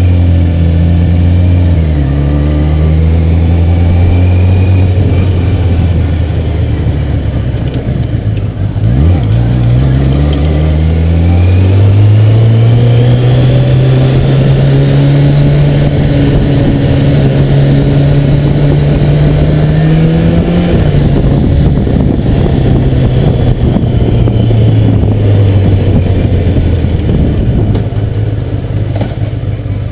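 Motorcycle engine heard from on the bike as it rides along, its note changing with speed: it drops about nine seconds in, climbs and holds steady, then drops again a little after twenty seconds as the bike slows.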